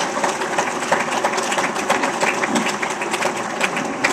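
Audience applauding: many people clapping at once, steady and dense.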